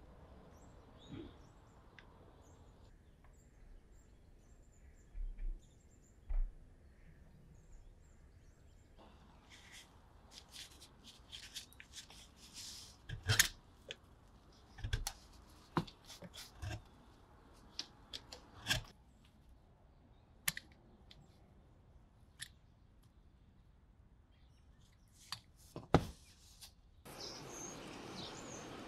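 Hoof knife blade shaving and cutting into a soft block, a scratchy scraping broken by sharp clicks and knocks. Near the end it gives way to a steady outdoor hiss.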